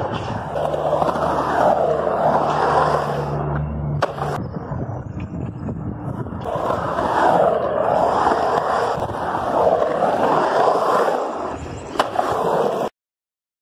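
Skateboard wheels rolling on a concrete bowl, the rumble swelling and fading every couple of seconds as the rider carves up and down the walls. A sharp knock comes about four seconds in and another near the end, and the sound then stops abruptly.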